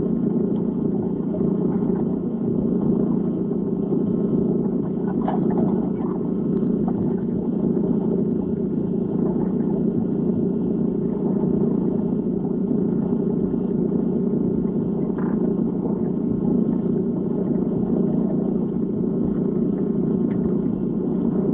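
Underwater ambience sound effect: a steady, muffled low rumble, with a few faint ticks of bubbles.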